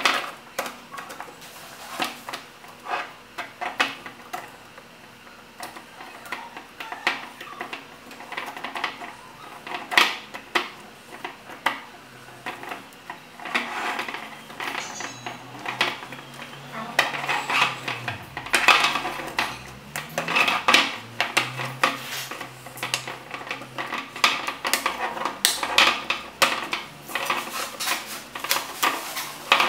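Thin slotted wooden pieces of a flat-pack pendant lamp clacking, knocking and scraping against one another as they are handled and pushed together, in many irregular clicks with short rattling runs.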